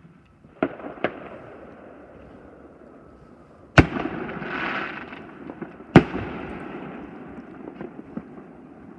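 Fireworks going off: two sharp bangs under a second in, then two much louder booms about two seconds apart, each trailing off in a long echoing rumble, with a spell of crackling after the first big boom and a few small pops near the end.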